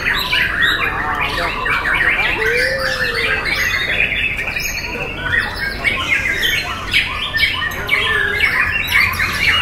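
Caged white-rumped shama (murai batu) singing a rapid, varied song of chirps and whistled glides. Other birds sing at the same time, so the song never pauses.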